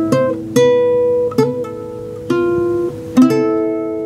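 Acoustic guitar played solo as the closing phrase of a song: a few plucked single notes, some sliding in pitch, then a last chord a little after three seconds in that rings out and fades.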